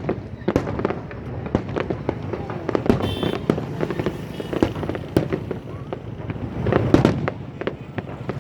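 Fireworks display: a rapid, irregular run of aerial shells bursting, with the loudest bangs about three and about seven seconds in.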